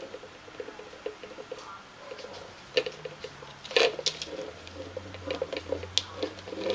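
A hard plastic ball clicking and knocking inside a jar as kittens paw at it and roll the jar. Many light taps, with a few louder knocks, three of them standing out.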